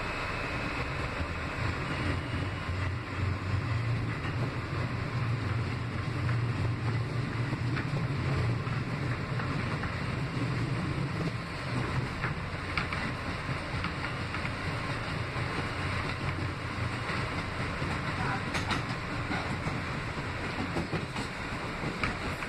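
Ride noise inside a moving NYC Subway R160B car (Alstom): a steady rumble of the train running on the track, with a few sharp clicks. The deep rumble is strongest through the middle and eases off over the last few seconds.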